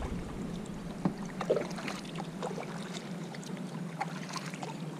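Sit-on-top kayak being paddled: the paddle blade dips in and drips, giving scattered small splashes and water drips, over a faint steady hum.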